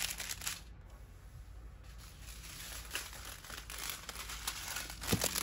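Small plastic bags of diamond painting drills crinkling as they are handled, with a quieter spell about a second in and a sharper click near the end.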